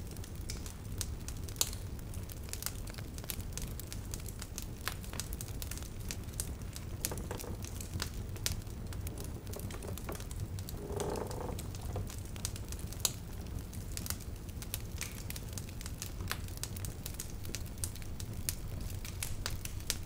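Wood fire crackling in a fireplace: scattered sharp pops and snaps over a steady low rumble.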